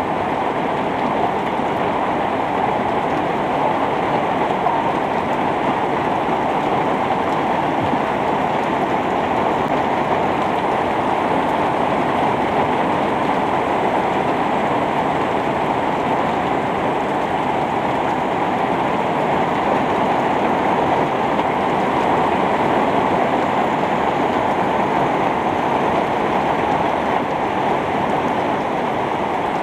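Heavy rain pouring down in a sudden shower, a loud, steady, even hiss with no letup.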